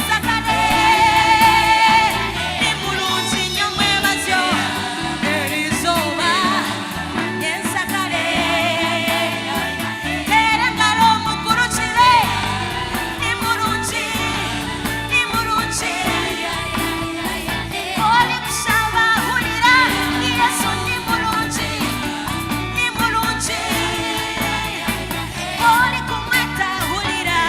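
A band with singers performing a song: sung vocals with vibrato over bass and drums.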